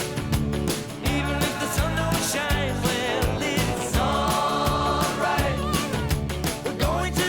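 Background music: a country-rock song playing with a steady drum beat and guitar, between sung lines.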